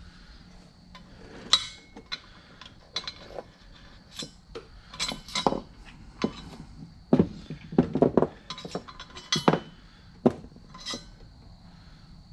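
Metal twin-disc clutch parts, bolts and washers clinking and clattering as they are handled and set down on a workbench: an irregular run of sharp clicks, some louder knocks among them.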